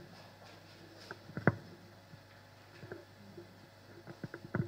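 Quiet pause in a large meeting hall: faint room tone with a few scattered small clicks and knocks, the clearest about a second and a half in and a few more near the end.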